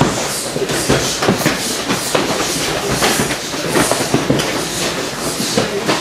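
Many pairs of full-contact karate students striking each other at once: a dense, irregular clatter of punches and kicks landing, mixed with feet moving on the mats.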